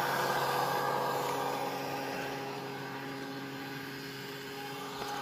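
Surface pump station's electric motor running steadily with a constant hum, drawing water up a freshly driven Abyssinian well point on its first run. The sound grows a little fainter about two seconds in.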